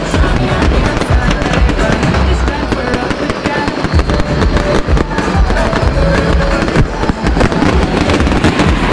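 Fireworks going off in rapid, overlapping bangs and crackles, with music playing underneath.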